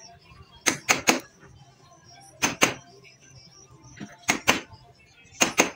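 A hammer strikes a steel chisel cutting into an ulin (Borneo ironwood) beam. The blows are sharp and come in quick groups of two or three, a group about every one and a half seconds.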